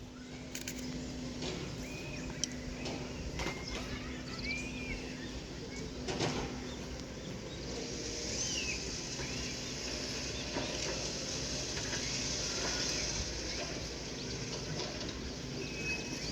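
Outdoor background ambience with many short chirps scattered throughout and a steady high hiss that grows from about eight seconds in. The grooming red pandas themselves make no distinct sound.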